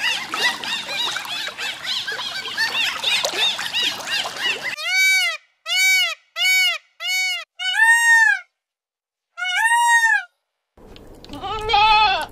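Dolphins chattering with many rapid, overlapping squeaks and whistles. A sharp change about four and a half seconds in brings a series of six short, arched peafowl calls with silence between them, the last two longer. Near the end a goat bleats once.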